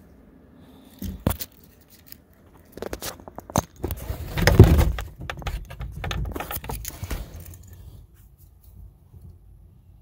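Remote-controlled battery-disconnect relay at the battery terminal clicking as it is switched on and off from its remote: a few sharp clicks about a second in and again around three seconds. Scraping and rattling handling noise, loudest about halfway, runs until near the end. The clicks confirm the relay is working.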